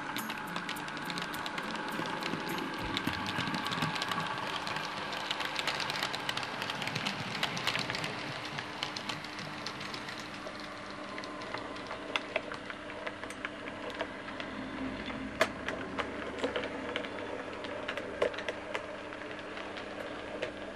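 OO gauge model diesel multiple units running on the layout: a steady motor hum with irregular light clicking of the wheels over rail joints and pointwork.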